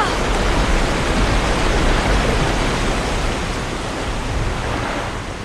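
Steady rush of a large waterfall of flood water pouring into a pool, a dense, loud hiss with deep rumble that eases slowly toward the end.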